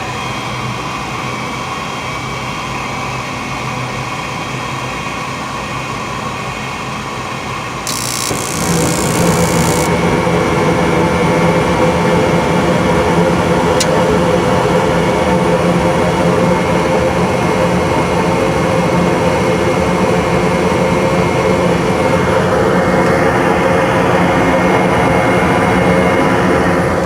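Gas furnace starting up on a call for heat after a new control board was fitted: a steady motor hum, then about eight seconds in a brief hiss as a louder steady running hum with several held tones comes in and carries on.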